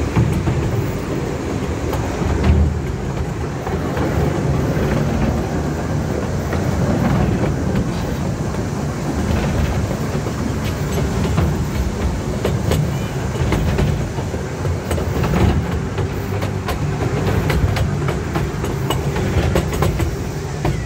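Amusement park ride train running along its track, heard from aboard an open passenger car: a steady low rumble with scattered clicks and rattles.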